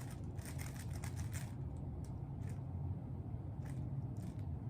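Rubik's cube being turned by hand: plastic layers clicking and clacking, a quick run of turns in the first second or so, then single turns, over a steady low hum.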